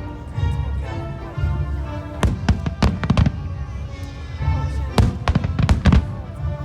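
Fireworks shells bursting in two quick strings of sharp bangs, one about two seconds in and another about five seconds in, over show music with singing.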